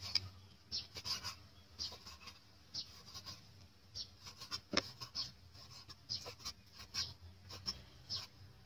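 Large kitchen knife slicing raw beef on a wooden chopping block: irregular taps and scrapes as the blade cuts through the meat and meets the wood, a couple of times a second.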